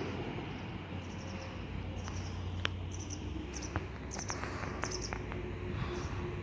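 Small birds chirping in short, quick clusters of high notes over a steady low rumble, with a few sharp clicks.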